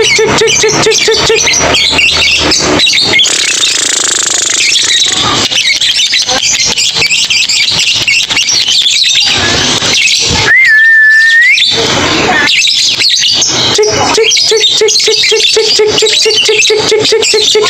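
Young lovebird chattering: a dense run of rapid ticking clicks and high twittering notes. About ten seconds in there is one loud whistled note that lasts about a second.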